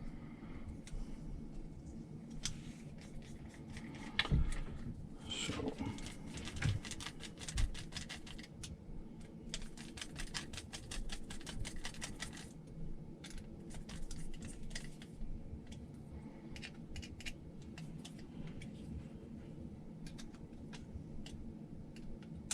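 Hands handling small parts and tools at a workbench: scattered light clicks, taps and scraping, with a dense run of rapid clicking about a third of the way in.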